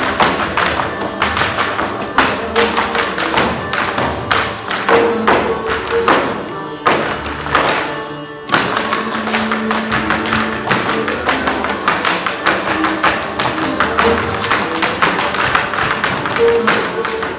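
Music driven by rapid, sharp percussive strikes over a few held notes; it thins out about eight seconds in, then comes back suddenly.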